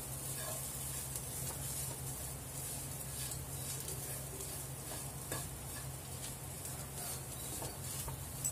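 A wooden spatula stirring and scraping a potato-and-onion filling around a non-stick frying pan, the mixture sizzling steadily over medium heat, with light scrapes of the spatula on the pan here and there and a steady low hum underneath.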